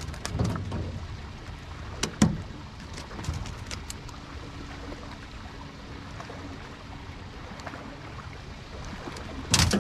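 Steady low rumble of wind and water around a small fishing boat, broken by a few sharp knocks and clicks of gear handled on the boat's deck, the loudest a little over two seconds in and another near the end.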